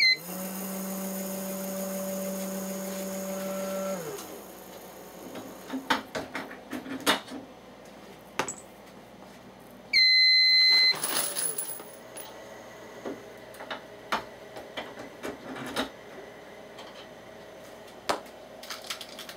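RCBS ChargeMaster electronic powder dispenser dispensing a charge. A short keypad beep, then its dispensing motor runs steadily for about four seconds and winds down, followed by a few seconds of short pulsed ticks as it trickles the last of the powder. About ten seconds in, a loud beep lasting about a second signals that the set charge weight has been reached, followed by scattered clicks and taps.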